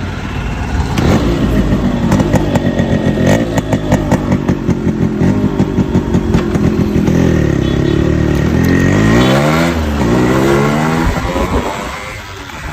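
Yamaha RX100's single-cylinder two-stroke engine running, with the throttle blipped so that the engine revs up and down several times in the second half before settling back.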